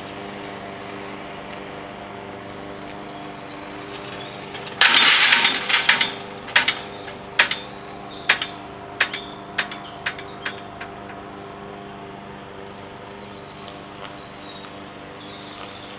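Level-crossing barrier booms with hanging grille skirts come down onto their rests with a loud clatter about five seconds in. The booms and grilles then bounce and rattle in a run of sharp knocks that come quicker and fade over the next six seconds. Birds chirp over a steady hum.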